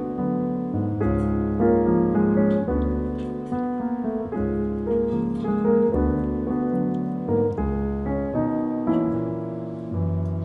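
Background piano music with soft chords changing about once a second.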